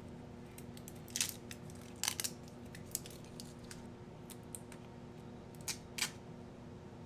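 A few light clicks and brief rustles of small objects being handled as a silicone mold is dusted with baby powder, over a steady low hum.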